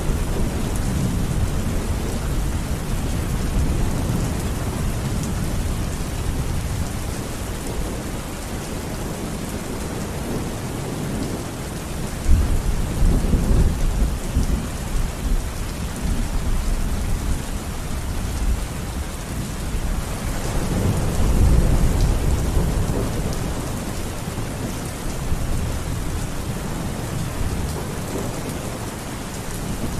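Steady rain falling, with low rumbles of thunder rolling in about twelve seconds in and again a little past twenty seconds.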